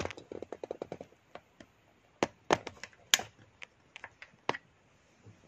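Clicks and knocks of fingers handling a smartphone as it is moved and turned: a quick run of small clicks in the first second, then a few sharper single clicks.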